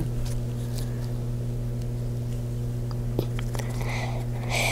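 Felt-tip marker scratching and dabbing on paper, with a few light taps, over a steady low hum; the scribbling gets louder about four seconds in.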